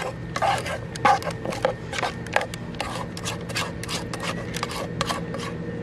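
A spoon scraping thick chocolate cake batter out of a metal pot, in short irregular strokes several times a second, over a faint steady hum.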